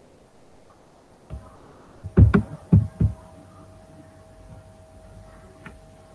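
A few soft knocks or thumps about two to three seconds in, over a faint steady hum that starts just over a second in.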